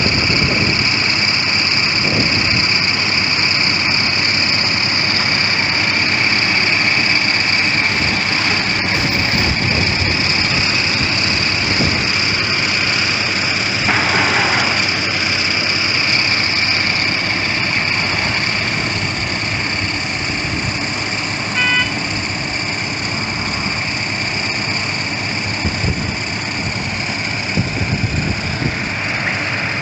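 Heavy road-construction machinery running steadily, with a constant high whine over the engine noise and a short beep about two-thirds of the way through.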